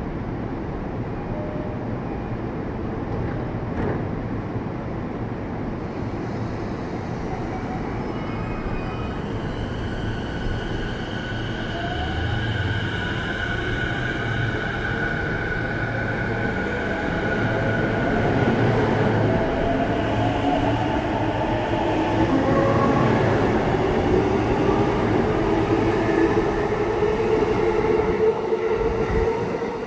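E233-1000 series electric train pulling away from the platform and accelerating. Its Mitsubishi IGBT-VVVF inverter whines in steady tones and rising glides, and wheel and rail noise grows louder as the cars pass.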